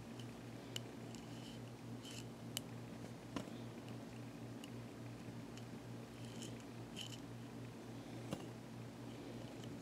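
Faint short scrapes and a few small clicks as a plastic drinking-straw curler is worked out of a toy pony's synthetic hair, over a steady low hum.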